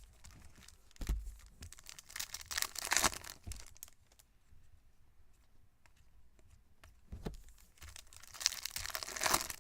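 Trading card pack wrappers being torn open and crinkled, in two bouts, the second near the end.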